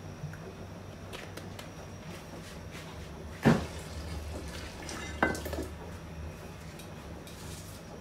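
A frying pan being handled on a gas stove: two sharp knocks of the metal pan, about three and a half seconds in and again a little after five seconds, with a few faint ticks, over a steady low hum.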